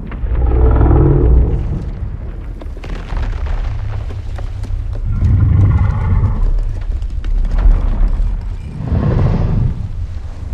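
Godzilla's roar sound effect, as the 2015-era Godzilla of the MonsterVerse: three deep growling calls, the first right at the start, the next about 5 s in and the last about 9 s in, over a constant heavy low rumble.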